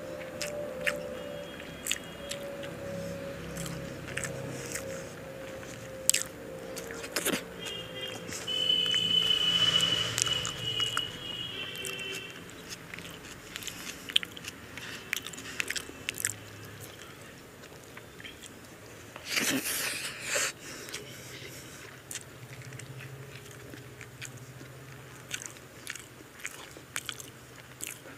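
Close-miked eating sounds: chewing and wet mouth smacks and clicks as mouthfuls of mutton biryani and chicken are eaten by hand. A high tone sounds in the background for a few seconds about eight seconds in, and there is a short hiss around twenty seconds in.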